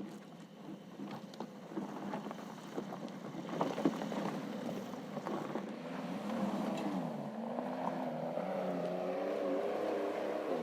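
Porsche 911 Dakar's twin-turbo flat-six engine pulling under load, its pitch wavering and climbing over the last few seconds. Scattered knocks and clicks in the first half.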